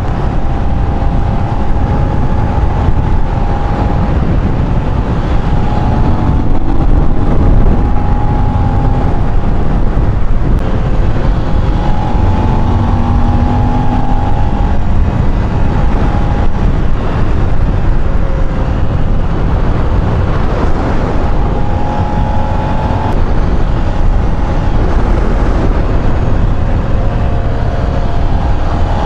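Cagiva Gran Canyon 900's air-cooled V-twin running at road speed, its note wavering slightly up and down, under heavy wind rush on the bike-mounted microphone.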